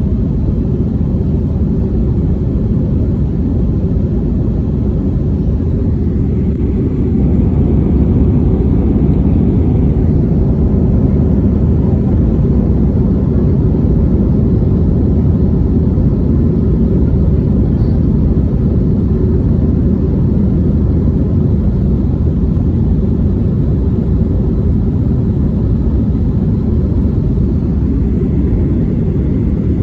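Airbus A320 jet engines running at high thrust during takeoff, a loud, steady, deep rumble that swells slightly about seven seconds in.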